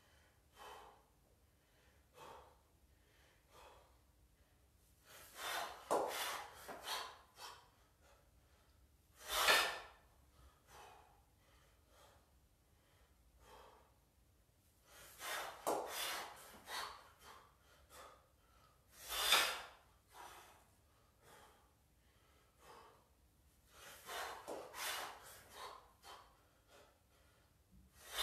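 A person breathing hard under exertion: a run of short, noisy breaths, then one sharp, forceful exhale. The cycle repeats about every nine to ten seconds, three times.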